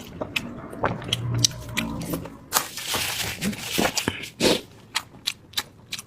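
Close-up eating of instant noodles: wet mouth clicks and chewing throughout, a short slurp of noodles around the middle, and a brief low hum of the voice about a second in.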